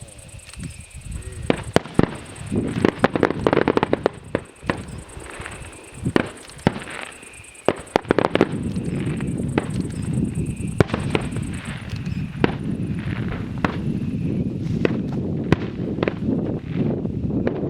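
Fireworks going off: a fast, irregular series of sharp bangs and cracks, with a steady rushing noise underneath from about halfway through.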